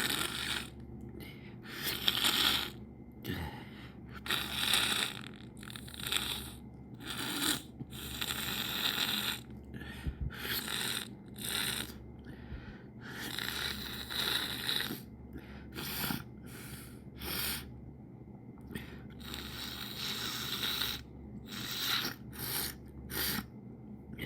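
A person sniffling over and over: many quick noisy sniffs in through the nose, some short and some drawn out, with brief pauses between them.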